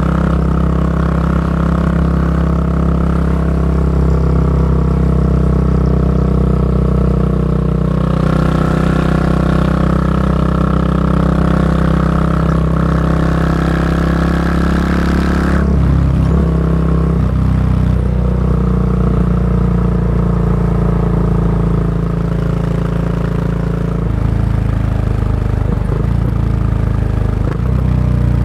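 Exhaust note of a Yamaha SR400's single-cylinder four-stroke engine through a Goods tapered-cone slip-on muffler, running steadily while riding. A hiss rises over the engine about a third of the way in and drops away suddenly just past halfway, where the engine note shifts; it shifts once more later on.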